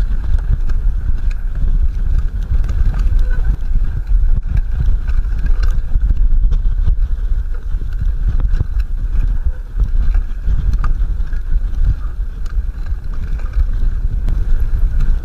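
Fatbike riding downhill over bumpy snow: an uneven low rumble of wind buffeting the camera microphone and the fat tyres rolling over the snow, with scattered light knocks and clicks from the bike.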